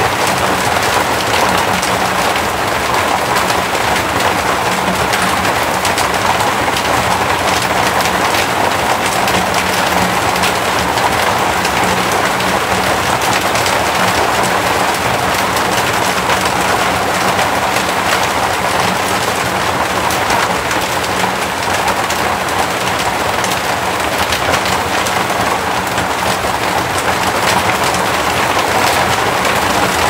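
Rain falling on an asbestos fibre-cement roof: a steady, dense patter of drops.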